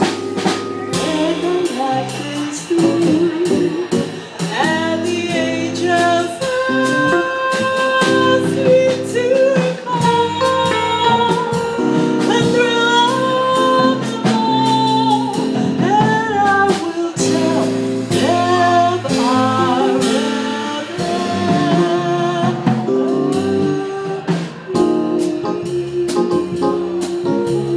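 Live jazz band: a woman sings into a microphone, backed by a drum kit with cymbals and a keyboard.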